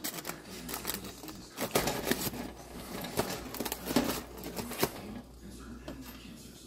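Popcorn kernels popping inside a Jiffy Pop pan's expanded aluminium-foil dome: irregular sharp pops, several a second, growing sparser near the end as the batch finishes.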